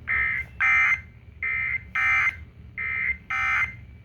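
Emergency Alert System SAME digital data bursts from a weather radio broadcast: short, harsh, warbling buzzes sent three times, each time as a pair of bursts. They come right after the tornado watch statement, as the end-of-message code that closes it.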